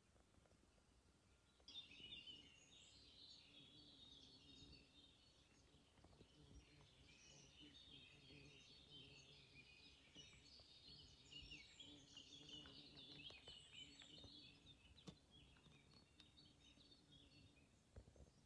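Faint birdsong: several birds singing and chirping at once, starting about two seconds in.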